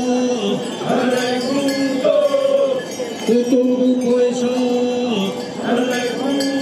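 A group of voices chanting in unison in long held notes, in phrases of about two seconds with short breaks between them.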